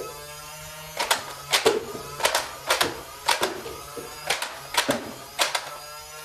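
Toy foam-dart blaster firing again and again, starting about a second in: about a dozen sharp clacks, many in quick pairs, as darts are shot and strike paper cups. The clacks ring a little in a small bare room.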